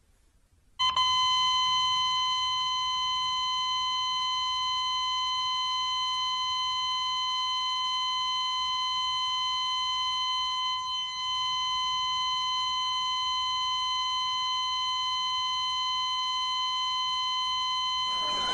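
A steady, high-pitched electronic beep tone, held unbroken for more than fifteen seconds after starting abruptly about a second in.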